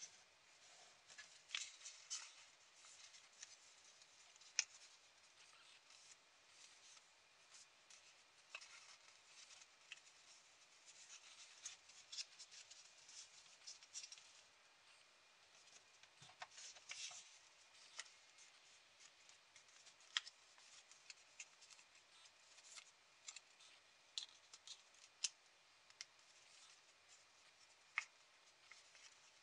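A sheet of origami paper rustling and crackling as it is folded and creased by hand: faint, with short sharp crackles at irregular moments.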